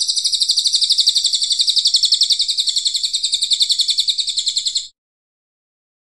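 Crested jay (cililin) giving a long, fast, even rattling call, high-pitched and harsh, at about eight pulses a second. It cuts off abruptly about five seconds in.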